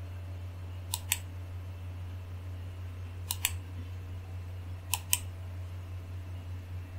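Computer mouse button clicking: three quick pairs of clicks, about a second in, at about three and a half seconds and at about five seconds, over a steady low hum.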